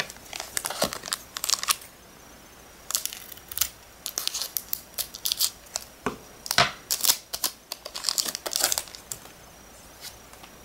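Foil wrapper of a Japanese Pokémon booster pack crinkling in the hands as it is picked up and torn open, the cards then slid out. Sharp crackles come in irregular flurries with short quiet gaps.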